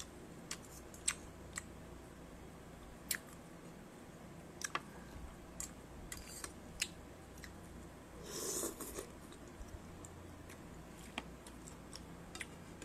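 Quiet eating sounds: scattered sharp clicks of a metal fork and spoon against a bowl, with chewing, and one longer noisy rush lasting under a second about two-thirds of the way in.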